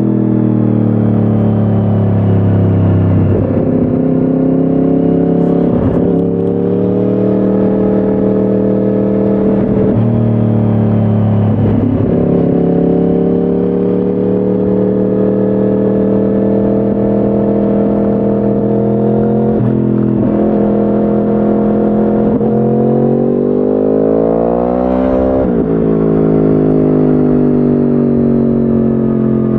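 2010 Yamaha R1's crossplane inline-four running through a decatted Akrapovic exhaust while riding, heard close up. The engine note holds steady for long stretches, breaks into sudden pitch drops several times, and near the end rises steeply then falls sharply.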